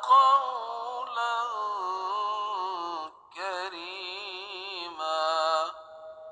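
A solo voice chanting a slow, ornamented melody with wavering held notes and no instruments. It breaks off briefly about halfway, and the last phrase ends near the end in one fading note.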